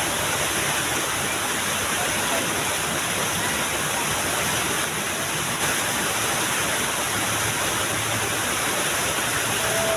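Small waterfall's water falling steadily, a constant even rush with no breaks.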